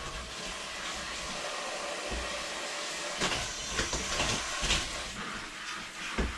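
Light knocks and clatter of a kitchen knife cutting peppers on a cutting board, starting about three seconds in, over a steady rushing hiss.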